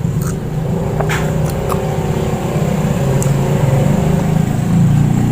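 A motor vehicle engine running close by, a steady low hum that grows a little louder, with a few small clicks over it.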